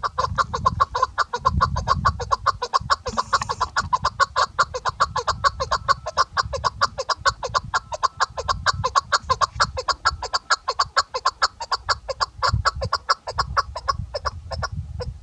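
Chukar partridge hen calling: a long, even run of rapid clucking notes, about six a second, that stops shortly before the end, over a low rumble.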